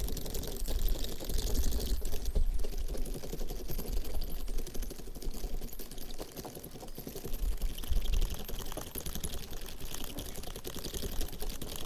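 Garden Weasel cultivator's spiked metal tines rolled and scraped back and forth through dry dead grass and soil. It makes a dense, continuous run of small scratching, rattling clicks.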